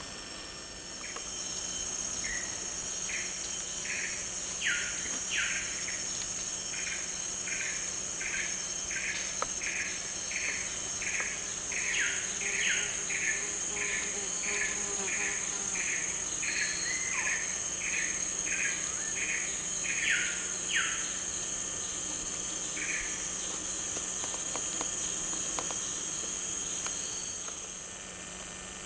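Tropical forest insects droning steadily at a high pitch, with a short call note repeated about one and a half times a second through the first two-thirds, a few louder falling notes among them.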